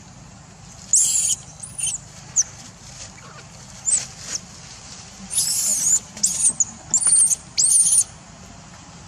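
Baby macaque giving a string of short, high-pitched squeals, about nine in all. They are spaced out at first and come closer together and last longer in the second half.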